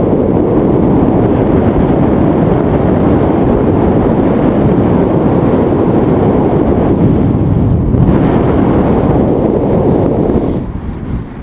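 Wind buffeting a camera microphone held out in the airflow of a tandem paraglider in flight: a loud, steady rumble that eases off briefly near the end.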